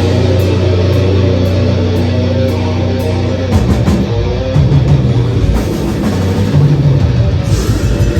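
Live death metal band playing loud, distorted: the guitars and bass ring out one sustained low chord, then about three and a half seconds in the full band breaks into a fast, driving riff with drums.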